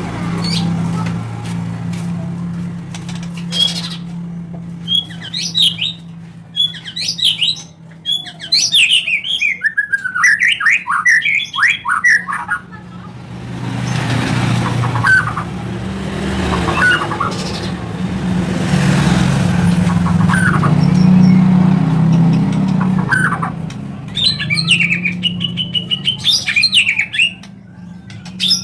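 White-rumped shama (murai batu) singing, a lure song: bursts of rapid, varied whistled phrases with scattered single notes and pauses between. A low steady hum runs underneath.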